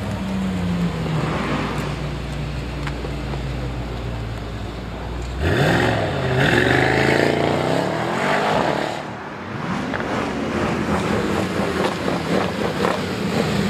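Sports car engines and exhausts. About five and a half seconds in, one engine revs up sharply and accelerates hard, louder for about three seconds before dropping away, with other engines running before and after.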